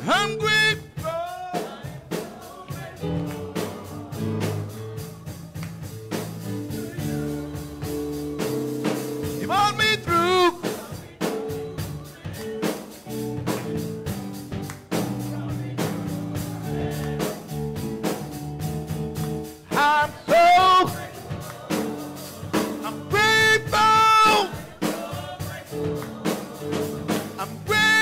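Gospel music: long held chords under a singer's voice with a wide vibrato, heard in short phrases that swell loudest about twenty seconds in and again a few seconds later, over a steady beat.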